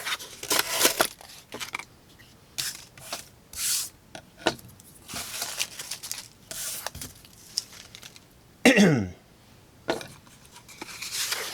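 Serrated knife blade stabbing and slicing into cardboard: a series of short, irregular scraping and tearing strokes, with one brief sound falling in pitch near the end.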